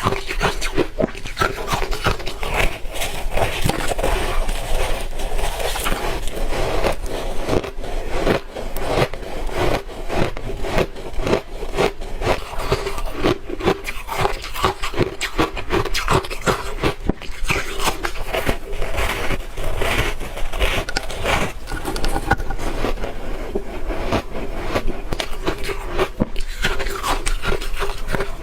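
Crunchy ice chunks coated in matcha powder being bitten and chewed close to the microphone: a dense, irregular run of cracks and crunches.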